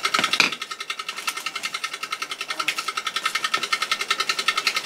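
A small machine motor running with a fast, even pulsing rattle, steady throughout, with a sharp click of handling just after the start.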